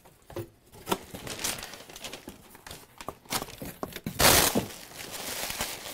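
A cardboard box being opened and brown packing paper rustled and crumpled by hand, with scattered knocks and scrapes of the cardboard flaps. A loud rustling burst comes about four seconds in.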